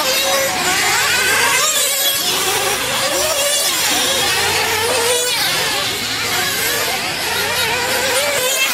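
Several nitro RC truggy engines buzzing around a dirt track, their pitch rising and falling as the cars accelerate and brake, with passes sweeping by every second or two.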